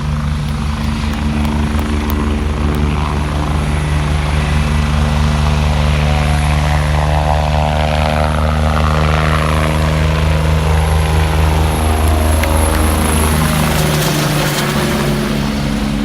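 Eurocopter EC145 twin-engine medical helicopter passing close by, its rotor and turbines running loudly; the pitch drops about three quarters of the way through as it goes past, and the sound eases slightly near the end.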